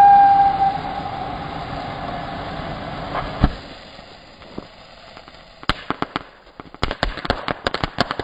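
Ground fountain firework: its loud whistle dips slightly in pitch and fades out within the first second, leaving a hiss of spraying sparks, with one sharp pop about three and a half seconds in. From about six seconds in it switches to its crackling stage, a dense run of rapid crackles.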